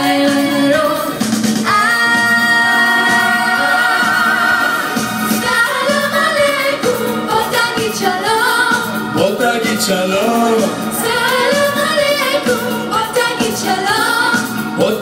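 Mixed vocal group of men and women singing a Hebrew song medley live into microphones, in harmony. About two seconds in, the voices hold a long chord before moving on into the melody.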